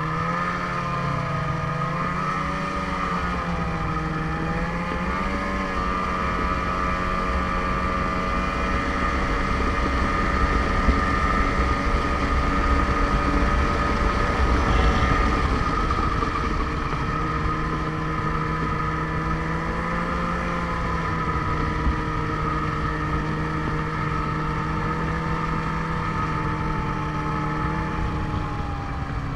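Ski-Doo snowmobile engine running under way, its pitch wavering with the throttle in the first few seconds and then holding steady. Wind rumbles on the microphone, heaviest and loudest from about ten to fifteen seconds in.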